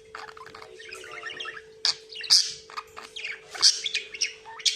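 Budgerigar chattering and warbling: a busy run of quick chirps with several loud sharp chirps, about two, two and a half and four seconds in. A steady faint hum runs underneath.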